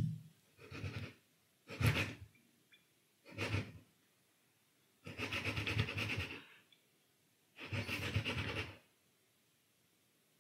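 Hands rubbing against the glass of a swing-top jar in six rough, swishing bursts, the last two longer than the rest.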